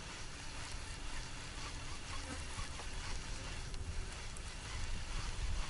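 Steady outdoor noise with uneven low wind rumble on the microphone, stronger about five seconds in, and a few faint ticks.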